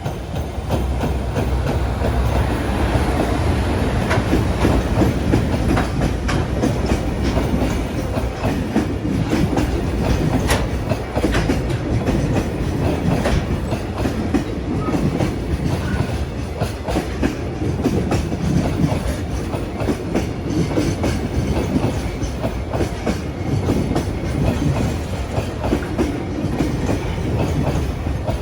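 Freight train rolling past close by: a steady heavy rumble with the wheels clattering over rail joints in a long run of clicks.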